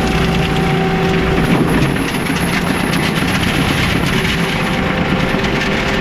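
Heavy equipment's diesel engine running hard under load, with continuous clanking and rattling from the machine and its tracks.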